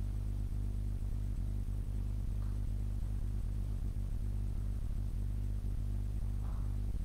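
A steady low hum with a faint buzzy haze above it, unchanging throughout.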